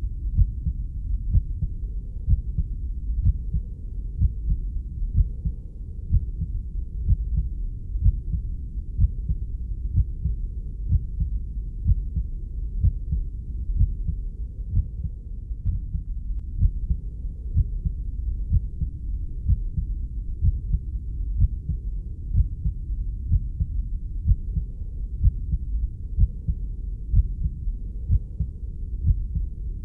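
Heartbeat sound: a steady, even run of low, dull thumps over a continuous low whoosh, like a heartbeat heard from inside the body.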